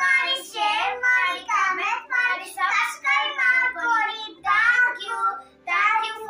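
A young girl's high voice singing in short phrases, one after another.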